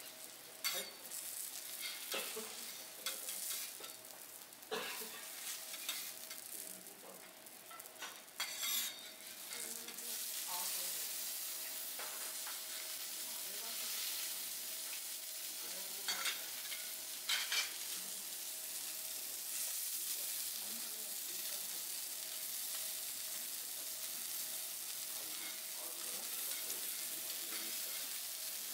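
Food sizzling on a teppanyaki griddle, with metal spatulas clicking and scraping on the hot plate. About ten seconds in, a louder, steady sizzle sets in suddenly, and a couple more spatula clicks come later.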